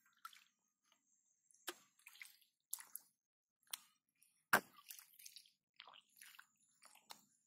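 Hands groping and digging in shallow muddy water: a string of short wet squelches and splashes, about one a second, the loudest about halfway through.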